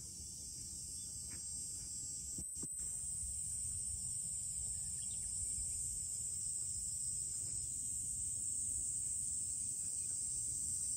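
Insects chirring in one steady, high, unbroken drone, over a low outdoor rumble.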